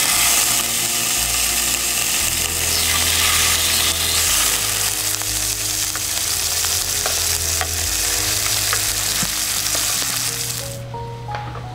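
Pork jowl slices sizzling and frying in a hot grill pan, a dense steady crackle of fat that cuts off suddenly near the end. Soft background music with held notes runs underneath.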